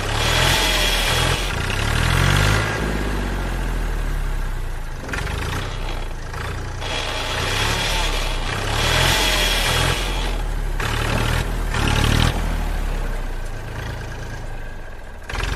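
Tractor engine running and revving, its low throb rising and falling, with the same stretch of sound repeating about seven seconds later as a loop.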